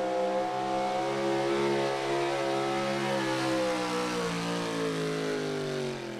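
Super modified pulling truck's engine running at high revs under load as it drags the weight sled down the track. The pitch holds steady, then falls over the last two seconds as the engine loses revs near the end of the pull.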